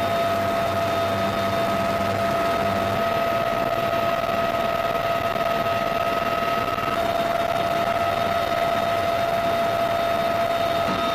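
Bell UH-1Y Venom helicopter running: a steady rushing noise with a constant high whine.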